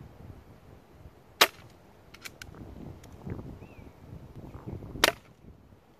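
Two shots from an SMK CP2 .22 CO2 air pistol set up as a rifle: a sharp crack about a second and a half in and another about five seconds in. A few faint clicks fall between them.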